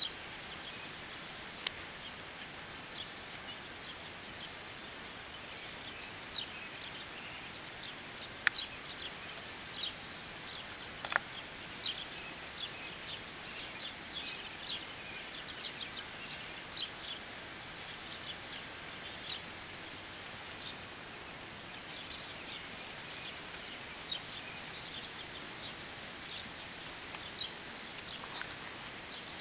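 Rural outdoor ambience: frequent short high-pitched chirps over a steady hiss and a constant thin high tone, with two sharp clicks about a third of the way in.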